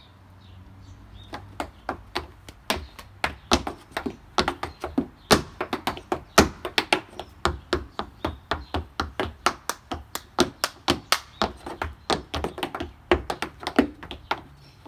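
Tap shoes striking a wooden deck in a tap-dance routine: quick runs of sharp taps, several a second, starting about a second in.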